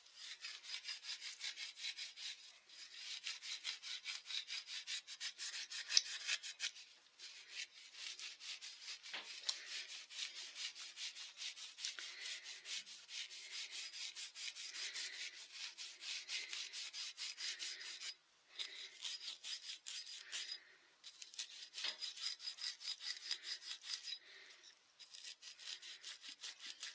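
Hand polishing of a Husqvarna 263 chainsaw crankshaft with a Scotch-Brite abrasive pad: rapid back-and-forth rubbing strokes, in runs broken by brief pauses.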